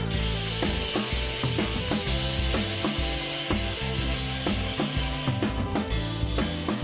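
Angle grinder with an abrasive cutoff wheel cutting through square steel tubing: a steady high grinding hiss that breaks off about five seconds in as the disc comes out of the cut, then starts again near the end. Background music with a bass line plays underneath.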